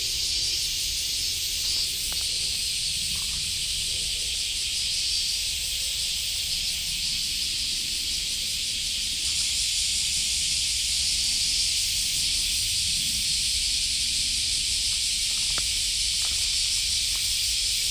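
Steady, dense high-pitched drone of an insect chorus in woodland, growing slightly fuller about halfway through, with soft low rustling underneath.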